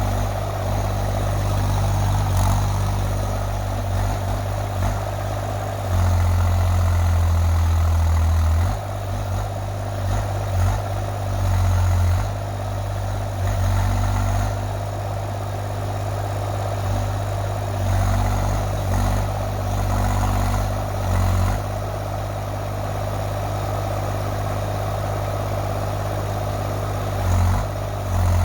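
Mini excavator engine running steadily, with several louder surges, the longest lasting over two seconds about six seconds in.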